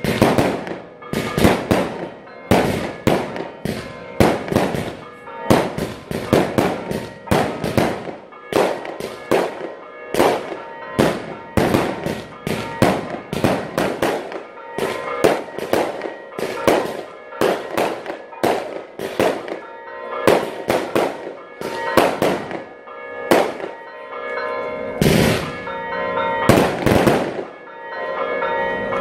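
Firecrackers bursting in a long, irregular run, a few bangs each second, over church bells ringing. The bangs stop just before the end, leaving the bells.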